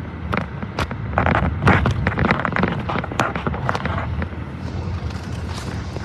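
Train rolling slowly with a steady low rumble and a run of sharp knocks and clanks, busiest in the middle and thinning out near the end.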